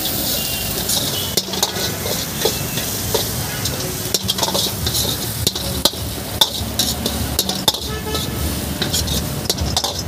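Steel ladle scraping and knocking against a wok as shredded cabbage with ginger, garlic and green chilli is stir-fried, with a steady sizzle underneath and irregular clinks from the ladle throughout.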